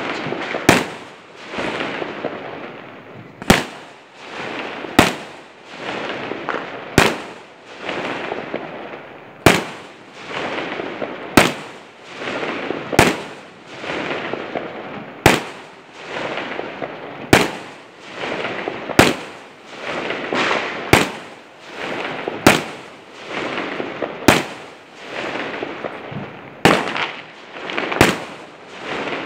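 Aerial fireworks (skyshots) firing shot after shot: a sharp bang about every one and a half to two seconds, with a rushing noise swelling and fading between the bangs.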